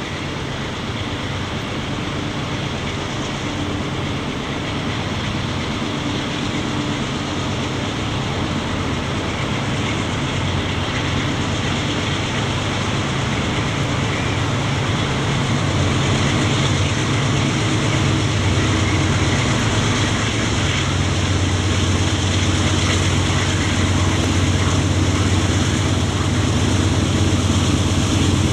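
Diesel locomotives of a CSX-powered freight train working hard up a grade, their engines droning steadily and growing louder as the train approaches.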